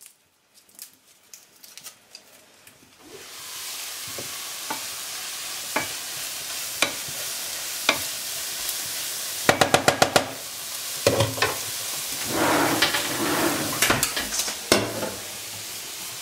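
Peas and onions sautéing in a frying pan, a steady sizzle starting about three seconds in. A wooden spatula taps and scrapes against the pan, with a quick run of taps about halfway through and busier scraping near the end.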